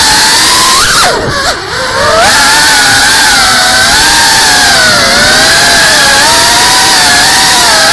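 Brushless motors of a GEPRC Cinelog 35 cinewhoop FPV drone whining, heard from the camera on board. The pitch wavers up and down with the throttle, drops sharply and goes quieter about a second in as the throttle is chopped, then climbs back.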